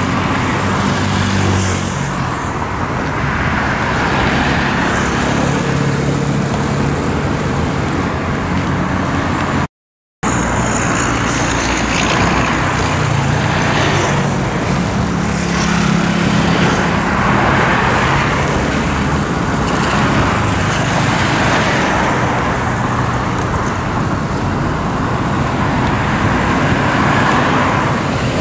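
Busy highway traffic passing close by: motorcycle and scooter engines, cars and pickup trucks, with steady tyre noise on the road. The sound cuts out completely for about half a second about ten seconds in.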